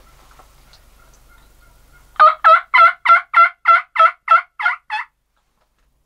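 Turkey yelping: a run of about ten loud, evenly spaced yelps, roughly three a second, the last ones a little softer, cutting off suddenly.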